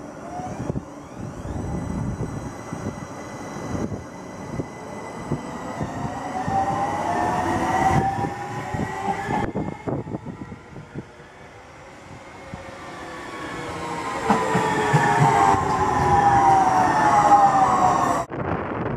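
Traction-motor whine of a driverless AnsaldoBreda Copenhagen Metro train, rising in pitch as a train pulls out of the station. After a cut, the whine of another train falls in pitch and grows louder as it brakes into the platform, with wheel and running noise underneath.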